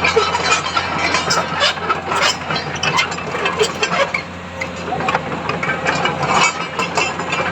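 Diesel engine of a Komatsu PC200 hydraulic excavator running steadily at idle, a low even hum with irregular mechanical clicks and clatter over it.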